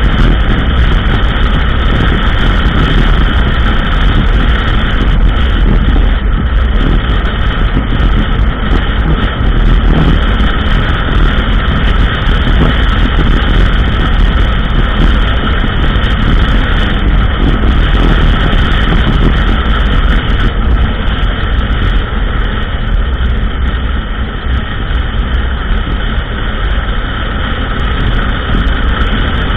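ATV engine running steadily while riding along a trail, mixed with wind and trail noise; it eases off slightly about 24 seconds in.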